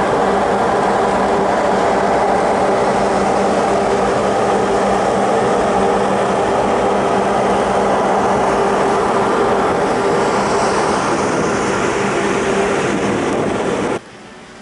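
Passenger ferry's engines droning steadily under a loud rush of wind and water on the open deck. The sound cuts off suddenly near the end.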